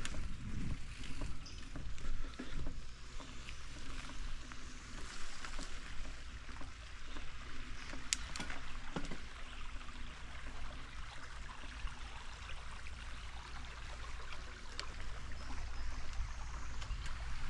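Bicycle rolling along a dirt farm trail: steady tyre and riding noise, with wind rumbling on the microphone and a couple of sharp clicks partway through.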